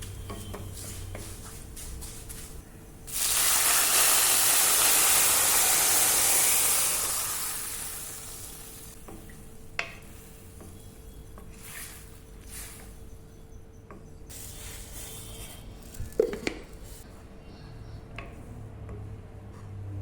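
Food hitting hot oil in a pan: a sudden loud sizzle about three seconds in that dies away over the next few seconds, followed by quieter stirring with a sharp clink near the middle and another clatter later on.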